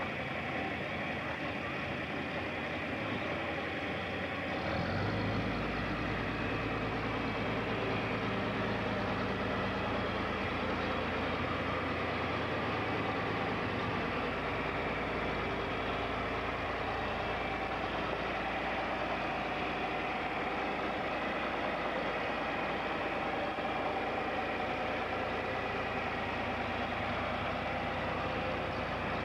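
John Deere farm tractor engine running steadily, with a lower, deeper sound joining about five seconds in.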